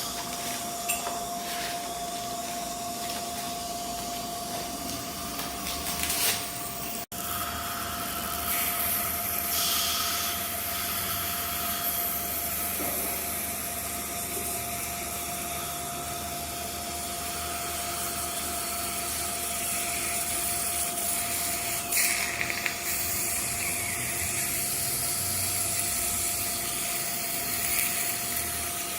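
Dental drill running with a steady whine over hissing water spray and suction. The sound drops out abruptly for an instant about seven seconds in.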